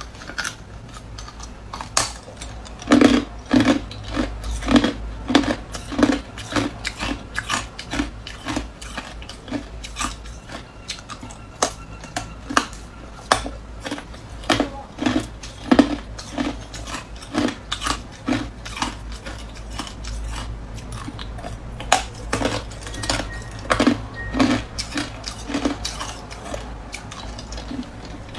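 Hard clear ice being bitten and chewed, a steady run of sharp cracks and crunches coming in quick clusters.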